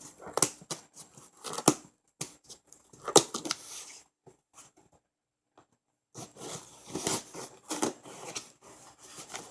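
Cardboard shipping box being opened by hand: irregular sharp clicks, tearing and rustling of tape and packing, broken by a pause of about two seconds near the middle.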